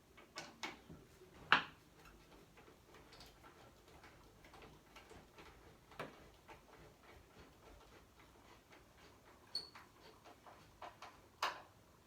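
Scattered metal clicks and knocks from a network switch and its rack-mount hardware as it is fitted into a rack. A few sharp clicks come in the first two seconds, the loudest about a second and a half in. Fainter ticking follows, then a short metallic ping and another sharp click near the end.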